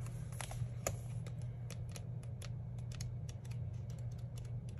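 Sticker-book pages being leafed through and handled: a run of light, irregular clicks and ticks from the stiff sheets, over a low steady hum.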